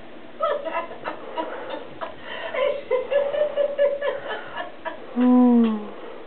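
Pet chicken's soft clucks and short chirps, with little clicks as it pecks. About five seconds in comes a louder falling note of about half a second.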